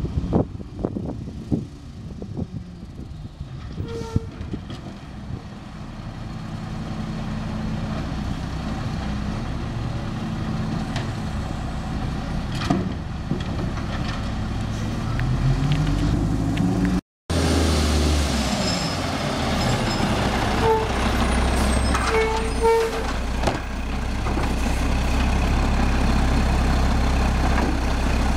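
Mack automated side-loader garbage truck: its diesel engine grows louder and revs up as it pulls toward the curb, then, after a cut, runs steadily and loud close by while the hydraulic arm lifts a cart, with a few short high squeaks.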